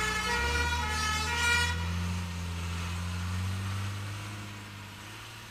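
Fire engine's two-tone horns alternating between a high and a low note, stopping about two seconds in, over the low rumble of its engine, which carries on and fades away.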